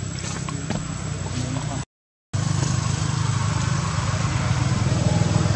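An engine running steadily at idle close by, a low even hum. It drops out for a moment about two seconds in and comes back louder.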